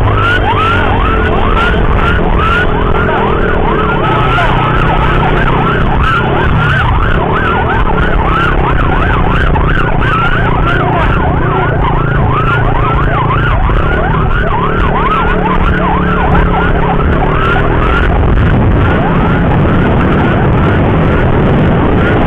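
Electronic emergency siren in a fast yelp, its pitch sweeping up and down several times a second without a break, over a steady low road and wind rumble.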